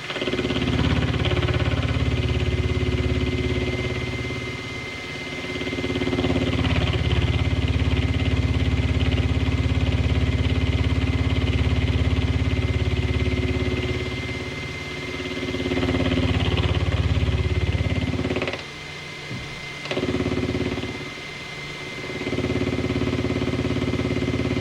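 Belt-drive PM30 milling machine running while a chamfer cutter takes passes. A steady low hum swells as the cutter bites and eases between passes, then drops away briefly twice near the end.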